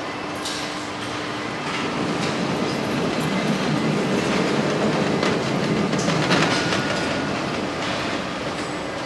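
A car body on its carrier rolling along a roller conveyor: a steady rumble with clattering clicks, growing louder toward the middle and easing off near the end.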